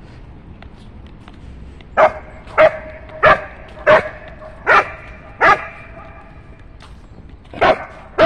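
A dog barking in a run of sharp barks, six in quick succession starting about two seconds in, then two more near the end, aimed at a squirrel up a tree.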